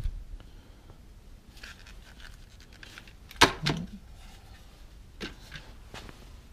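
Tools being handled on a wooden workbench: scattered small clicks and clinks, with one sharp knock about three and a half seconds in.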